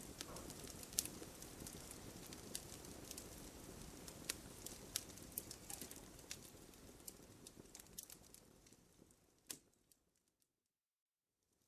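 Wood fire crackling: scattered sharp pops and snaps over a low hiss of burning. The sound fades away toward the end with one louder pop, drops to silence for about a second and a half, then comes back faintly.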